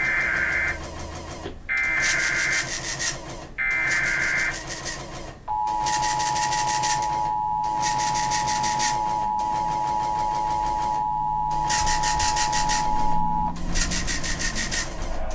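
Emergency Alert System signalling: three short bursts of SAME header data tones, a warbling digital screech, then the steady two-tone EAS attention signal (853 and 960 Hz) held for about eight seconds. It cuts off near the end, ahead of the repeated Amber Alert message.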